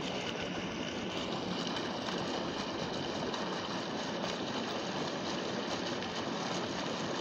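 Steady rushing noise of water pouring from the running 3-inch solar tubewell, with faint steady high tones over it.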